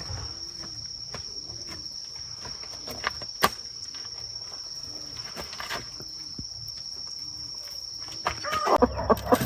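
A steady high insect drone, crickets, with soft short low calls and a couple of sharp clicks. Near the end a rapid run of clucking from chickens starts up.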